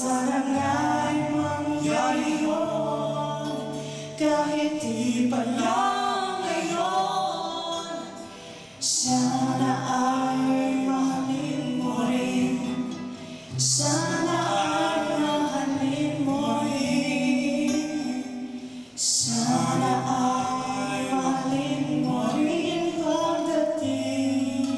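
A man and a woman singing a ballad together to two strummed acoustic guitars, the voices pausing briefly between phrases every four to five seconds.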